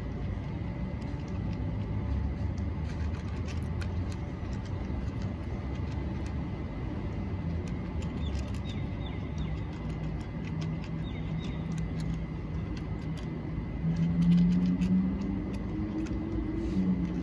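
A motor vehicle engine running steadily, swelling and rising slightly in pitch about fourteen seconds in.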